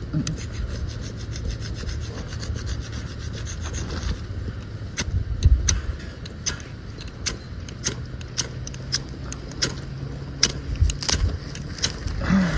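Ferrocerium fire-starter rod scraped hard with a metal striker to throw sparks onto wood shavings. First a quick run of close scrapes for about four seconds, then slower separate strokes, one or two a second. The shavings have not yet caught.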